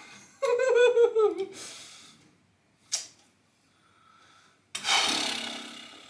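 A person's voice in a falling, wavering laugh, then about five seconds in a sudden loud noisy burst that fades over about a second.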